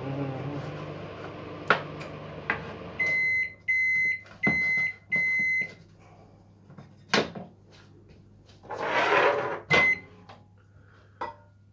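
Microwave oven running with a low hum that stops, then four beeps marking the end of its heating cycle. Clicks and knocks follow as it is opened and the plastic tub of melting chocolate is taken out.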